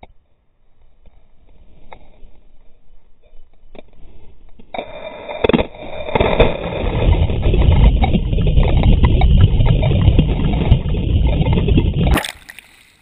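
Water rushing and churning around a GoPro as it plunges under the surface, a dense low rumble that builds from about five seconds in and cuts off sharply near the end.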